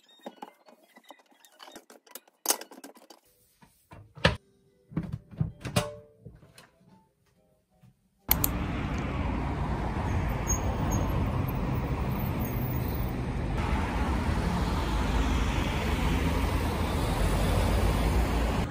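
Quiet kitchen sounds: a cloth wiping a countertop with a few knocks and clicks of things being handled. About eight seconds in, it cuts abruptly to steady outdoor street noise, which is the loudest part.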